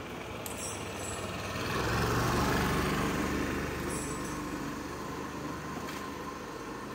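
A motor vehicle passing: a low engine hum with road noise that swells about two seconds in and then slowly fades.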